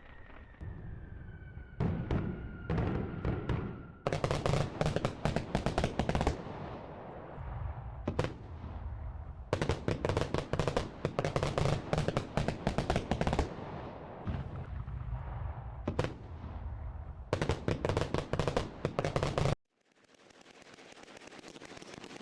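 Fireworks going off: a falling whistle, then volleys of rapid crackling reports, several seconds each, with short lulls between. The volleys stop abruptly near the end, leaving a steady hiss.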